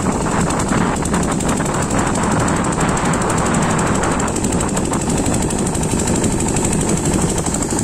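Single-cylinder water-cooled 8 hp diesel engine driving a water pump set, running steadily under load with a rapid, even knocking beat. Under it is the hiss of water spraying from the discharge pipe and from a leaking joint at the pump.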